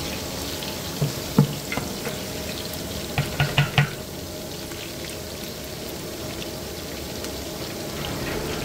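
Sliced onions sizzling steadily as they fry in oil in a large pot. A couple of sharp knocks come about a second in, and a quick run of four comes around three and a half seconds in.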